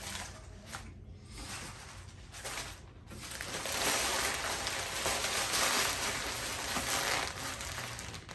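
Faint eating and food-handling noise: a few soft clicks, then about three seconds in a longer stretch of rustling, crunchy noise.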